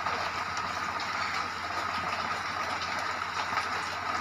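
Steady background noise: an even hiss with a low hum and a faint high whine running under it.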